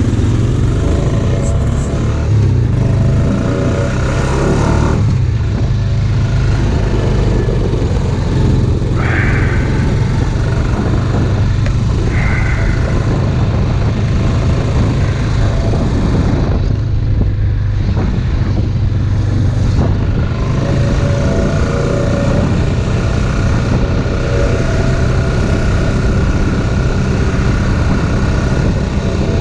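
Off-road vehicle engine running steadily under way.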